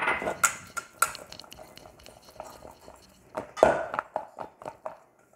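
Stainless steel mixing bowl clattering and knocking as oiled discs of dough are tossed and mixed in it by hand. A run of short light knocks, with louder clatters at the start and again about three and a half seconds in.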